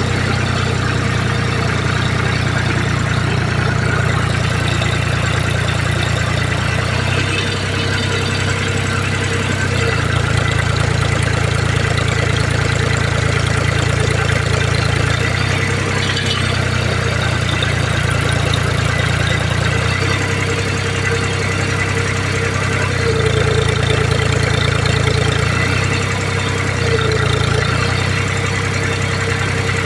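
Tractor engine running steadily, its speed stepping up and down between two settings several times.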